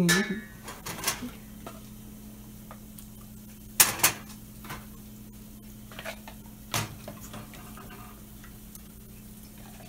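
Kitchen clatter: dishes and utensils knocking and clinking a few scattered times, the loudest knock about four seconds in, over a steady low hum.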